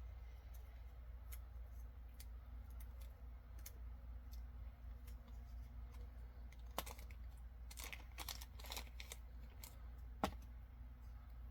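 Scattered light clicks and rustles from handling pins and their packaging, busiest about two-thirds of the way through, with one sharper click near the end, over a low steady hum.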